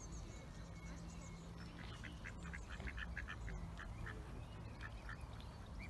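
Mallards calling: a quick run of short, fairly high calls from about two seconds in, lasting some three seconds, over a low steady hum.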